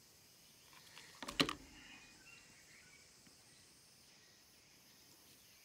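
A quick cluster of small, hard clicks about a second in, from acorns and acorn caps being handled, over a faint steady background hiss.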